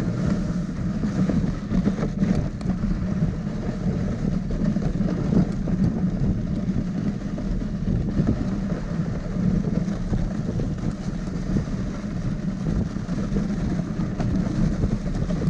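Steady rumble and hiss of a dog-drawn rig travelling over the packed snow of a trail, pulled by a team of samoyeds.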